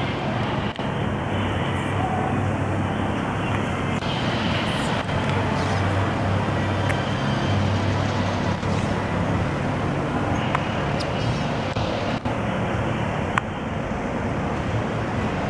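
Steady outdoor traffic-like noise: a continuous low engine rumble under a dense hiss, with a few brief clicks.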